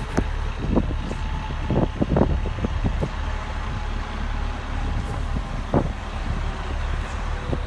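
Steady low rumble of a motor vehicle driving, with scattered short knocks and taps.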